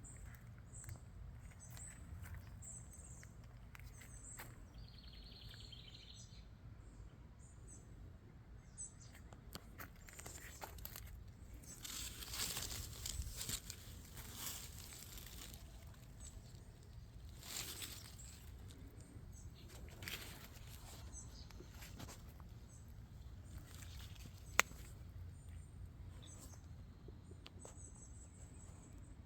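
Faint outdoor garden ambience: small birds chirping high and briefly, with one short warbling call near the start. A few seconds of rustling noise come about midway, and there is a single sharp click later.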